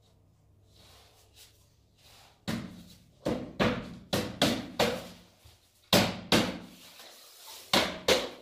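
About ten hard knocks in an uneven rhythm, starting about two and a half seconds in, as laminate flooring planks are knocked into place.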